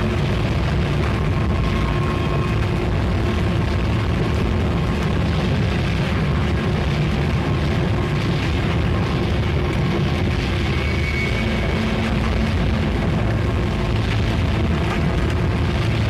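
Recorded music: a dense, steady wall of noise with a heavy low rumble and faint held tones above it, a thin high tone entering near the end.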